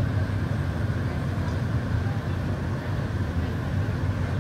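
Blower fans of an artificial tornado machine running steadily: a continuous, even low rush of moving air.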